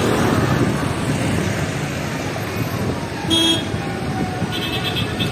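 Busy road traffic with a steady wash of passing cars, a car horn honking once briefly about three seconds in, and a quick series of short horn toots near the end.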